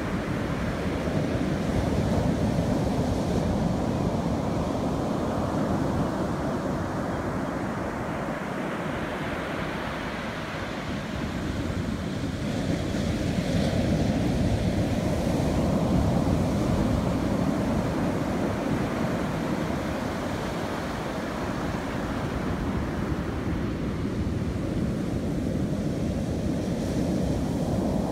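Ocean surf: small waves breaking and washing up over a sandy beach, a steady rushing that swells and ebbs slowly as each set comes in.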